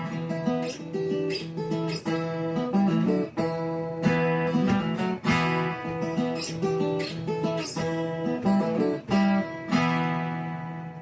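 Acoustic guitar strumming chords in an instrumental passage of a song, the last chord left to ring out and fade near the end.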